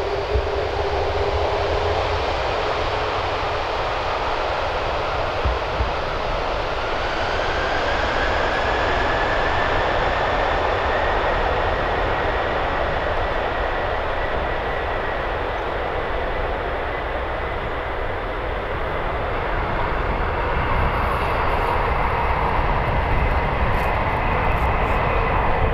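Boeing 747-400 freighter's four jet engines at takeoff thrust, heard from behind as it starts its takeoff roll: a steady, dense jet noise with a whine that rises in pitch as the engines spool up, about six to ten seconds in.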